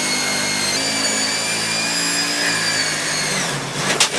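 Electric drill boring through plywood, a steady whine that steps up slightly in pitch under a second in. It winds down with a falling pitch about three and a half seconds in, followed by rough scraping of wood near the end.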